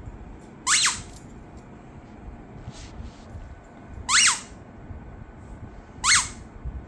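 Squeaky dog toy squeezed three times under a blanket, each squeak a short note that rises and falls in pitch. The squeaks come about three seconds apart, then two.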